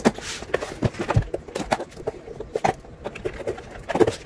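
Long cardboard product box being handled, turned over and opened by hand: irregular taps, knocks and scrapes on the cardboard, with a brief scrape right at the start.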